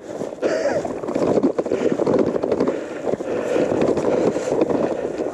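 Gravel bike rolling fast down a stony dirt track: tyres crunching over loose stones and the bike rattling, with wind buffeting the microphone.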